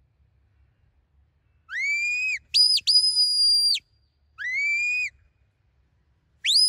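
Shepherd's whistle commands to a working sheepdog: a short rising whistle, a quick high blip and then a long, steady high note, another short rising whistle, and near the end a whistle that rises and is held high.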